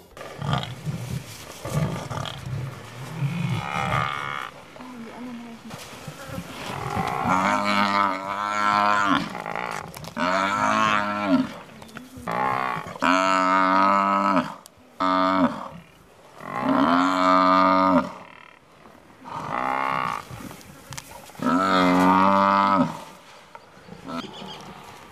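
African buffalo bellowing in distress while lions pull it down: a run of long, loud moaning bellows, one every two to three seconds, starting about a quarter of the way in. Low rumbling sounds come before the bellows begin.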